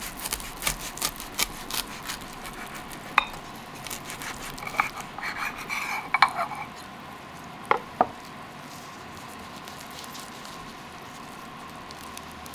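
Knife sawing through crisp toasted sourdough, a quick run of crunching crackles, then the sandwich halves being pulled apart through a soft, wet filling, with a few sharp knocks along the way.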